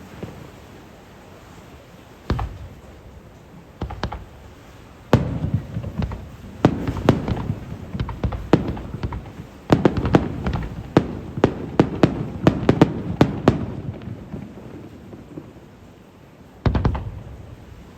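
Aerial fireworks shells bursting: single booms a second or two apart, then a quick run of many bangs and crackles lasting about seven seconds, and one more boom near the end.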